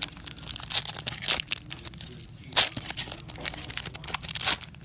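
Trading-card packs being torn open and their wrappers crinkled as the cards are handled: an irregular run of crackling rustles, with one sharper, louder rip about two and a half seconds in.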